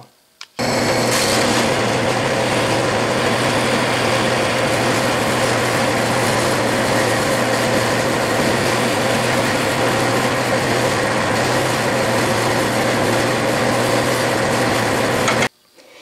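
Metal lathe running under a facing cut, the tool taking chips off the end of 5/8-inch round stock: a steady, even machining noise with a low motor hum. It starts abruptly about half a second in and stops abruptly near the end.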